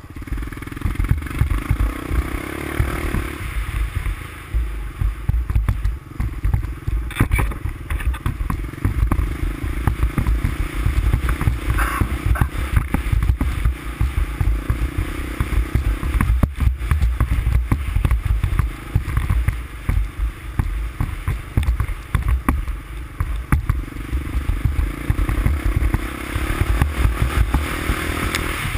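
350X ATV engine running steadily as the machine rides along, with a strong low rumble and a couple of sharp clatters about 7 and 12 seconds in.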